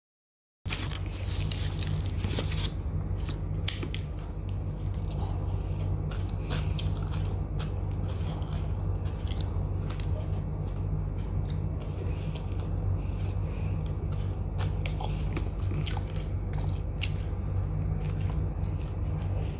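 Close-miked eating of a soft veg pizza slice: bites and chewing with sharp mouth clicks, over a steady low hum. The sound cuts in suddenly about half a second in.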